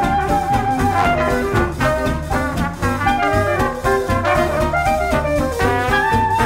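Background music: swing-style jazz with a brass lead over a steady beat.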